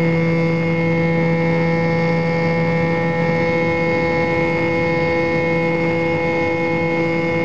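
Model airplane's motor and propeller running at a steady pitch, heard from on board the plane: a constant droning hum with no change in speed.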